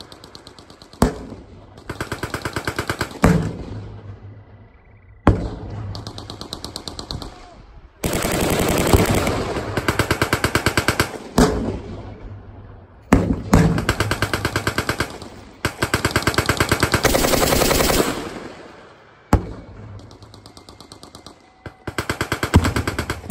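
Machine guns firing long, rapid bursts of several seconds each, with short lulls between them. Single sharper cracks break in every few seconds, each with an echoing tail.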